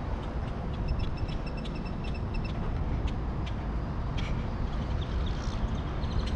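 Wind rumbling on the microphone outdoors, with a faint quick run of high, evenly spaced ticks about a second in and a few scattered clicks.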